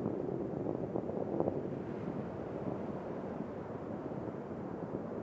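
Distant rocket rumble of Space Shuttle Discovery's solid rocket boosters and main engines during ascent: a steady, noisy roar with a couple of brief crackles about a second in.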